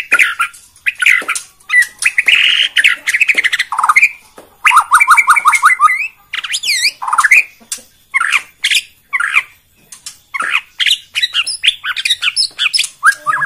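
White-rumped shama (Bornean murai batu) singing a loud, continuous, varied song: rising and falling whistles mixed with harsh chattering notes, and a quick run of evenly repeated notes about five seconds in.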